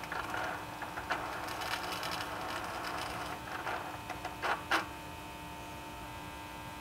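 Holset HE300VG electric turbo actuator's motor driving the sector gear through its calibration sweep: a faint steady whirr over a hum, with a few light clicks, easing off about five seconds in.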